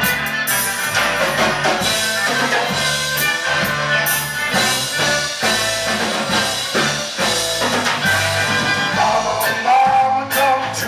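Live band playing with fiddle, saxophone, drum kit and electric guitars.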